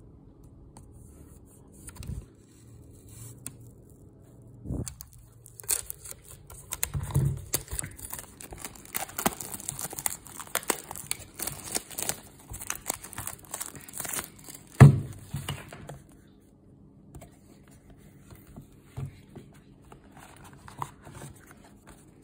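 Plastic shrink wrap crinkling and tearing as it is peeled off a cardboard box, busiest from about five to sixteen seconds in, with one sharp knock near the middle; then quieter handling of the box.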